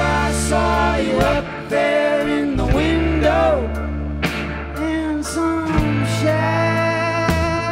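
Rock band playing live: electric guitars, bass guitar, drums and keyboard.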